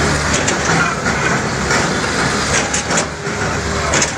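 Heavy machinery running with a steady low rumble, with several sharp knocks and clanks.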